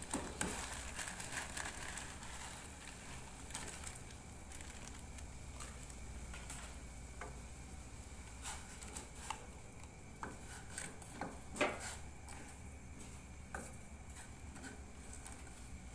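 Instant noodles cooking in a pot of boiling water, stirred with a wooden spatula: a faint steady hiss with scattered light knocks and clicks of the spatula against the steel pot, the sharpest about two-thirds through.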